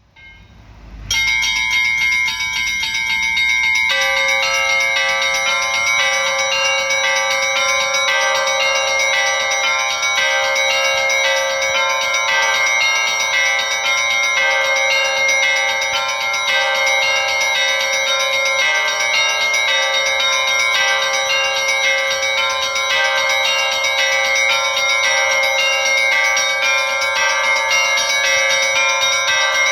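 Russian Orthodox church bells rung by hand in a continuous peal: small high bells start about a second in, and deeper bells join about four and then eight seconds in, all ringing together in quick repeated strokes.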